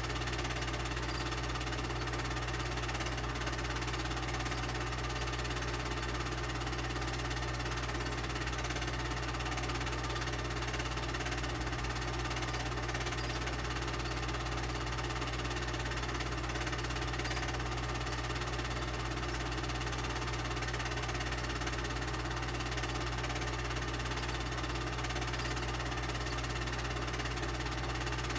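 Steady mechanical whir and hum of a home-movie film projector running, with constant hiss and no change throughout.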